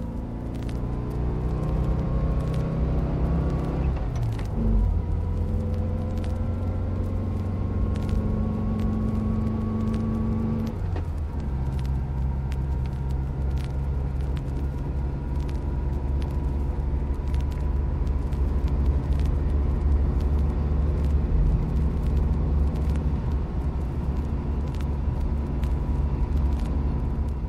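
Freight elevator's electric hoist motor winding up with a rising whine over the first few seconds, then running at a steady hum. The tone changes abruptly about eleven seconds in, and the machine keeps running at a steady hum afterwards.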